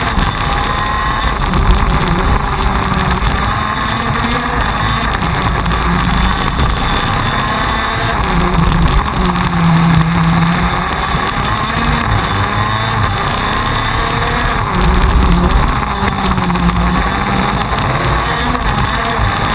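A TM 125 cc two-stroke KZ2 shifter kart engine at racing speed, heard from on board: a loud, continuous rasp whose pitch climbs and falls again and again as the kart accelerates out of corners and slows into them.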